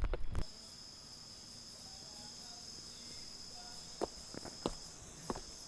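Insects in the forest, crickets or cicadas, keeping up a steady high-pitched trilling. It opens with a few thumps and a low rumble that stop abruptly about half a second in, and a few faint clicks come later.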